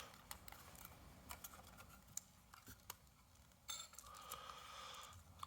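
Near silence with a few faint, scattered clicks and taps of tools working at a smoke detector's plastic case.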